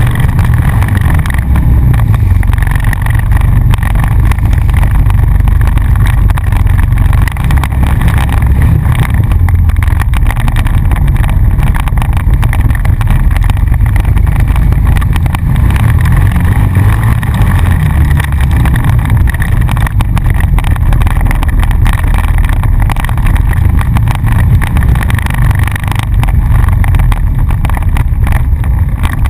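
ATV engine running steadily as the four-wheeler is ridden along a dirt trail, loud and close to the microphone.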